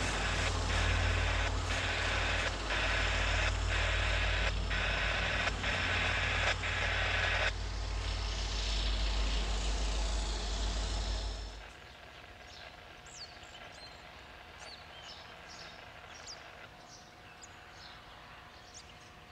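A diesel commuter-rail locomotive running as the train departs, with a bell ringing about once a second for the first several seconds. About twelve seconds in, the engine sound cuts off and gives way to quiet with birds chirping.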